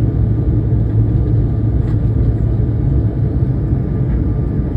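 Airliner engines at takeoff power with rushing airflow, heard inside the passenger cabin as a loud, steady low rumble with a faint thin whine above it.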